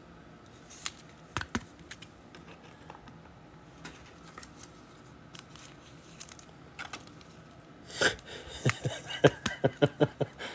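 Trading cards and pack wrappers being handled on a table: scattered light clicks and rustles, then a quicker run of crinkling and clicking in the last couple of seconds.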